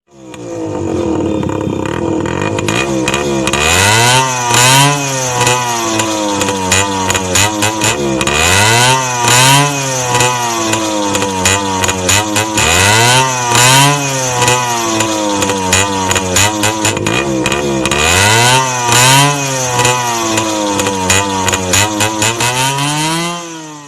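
Yamaha RX100's two-stroke single-cylinder engine being revved over and over. Its pitch climbs and falls in about five big sweeps after a few seconds of lower running, with short crackles throughout, and it fades out at the end.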